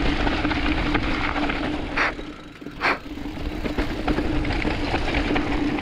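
Giant Reign mountain bike riding down a dirt trail: continuous rumble and rattle of tyres and bike over the ground with a steady whirring tone, and two short hissing bursts about two and three seconds in.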